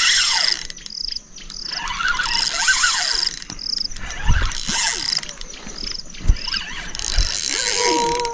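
Fishing reel ratcheting in spells as line is wound in and the drag gives, the sound of a hooked fish being fought. An insect chirps about twice a second throughout.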